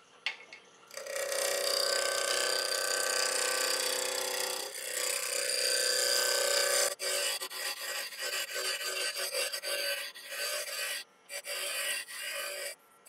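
Spindle roughing gouge cutting a spinning ash blank on a wood lathe, turning it down to round. The cut starts about a second in and runs steadily for about six seconds, then breaks into short passes with brief pauses between them.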